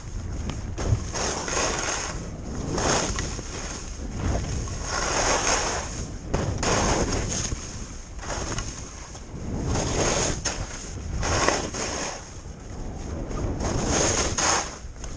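Skis carving turns on snow: a swoosh of ski edges scraping and sliding that swells and fades with each turn, about one every one to two seconds, over wind rushing on the microphone.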